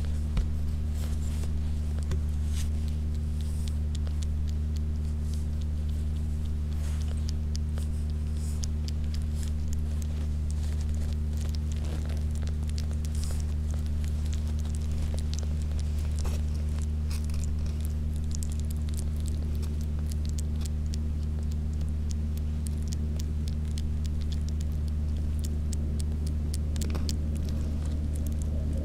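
Newborn kitten suckling on a fingertip, making faint, irregular wet clicks and smacks, over a loud steady low hum.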